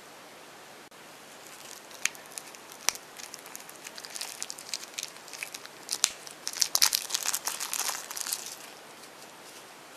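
Thin clear plastic wrapper crinkling and crackling as it is pulled off a small plastic toy. A couple of sharp crackles about two and three seconds in, and the crinkling is densest near the end before it stops.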